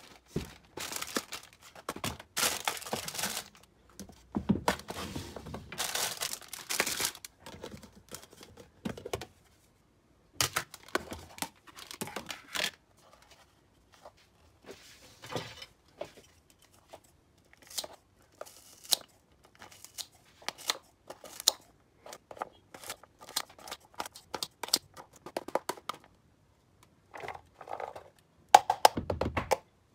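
Plastic food packaging and cling film crinkling and tearing in irregular bursts as packs are opened, with plastic food boxes and lids clicking and knocking on a wooden chopping board.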